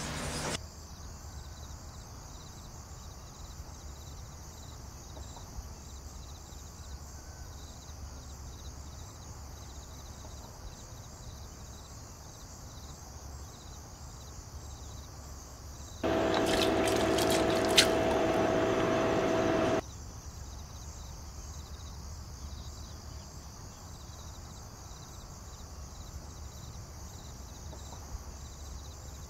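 Faint steady background hiss, then for about four seconds, a little past halfway, water and shredded ginger poured into a steel pot, with the pot ringing and one sharp clink in the middle.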